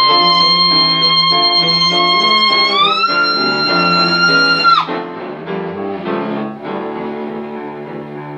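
Soprano voice holding a long high note, sliding up to a higher one about three seconds in and breaking off sharply near five seconds, over bowed cello and piano. Cello and piano then carry on alone, gradually growing quieter.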